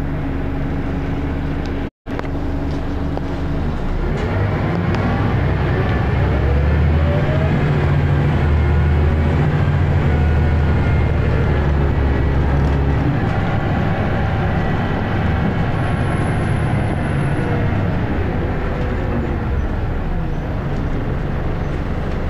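Scania L94UB bus heard from inside the saloon, idling with a steady hum and then pulling away. The engine and ZF gearbox rise in pitch again and again through the gears, get louder, then ease off. A brief dropout cuts the sound about two seconds in.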